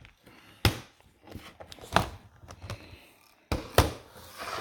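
Handling sounds from a laptop being turned over to have its back-cover screws put back in: a handful of sharp plastic knocks and clicks, four of them louder, with light ticks between.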